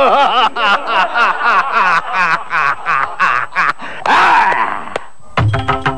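A man's drawn-out theatrical laugh, a long run of quick 'ha-ha' bursts, ending in a breathy rush about four seconds in. Music with tabla drumming starts near the end.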